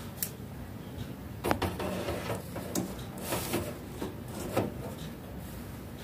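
Indian ringneck parakeet biting and chewing a piece of food held in its foot: irregular crunching clicks and scraping, busiest from about a second and a half in and dying away about a second before the end.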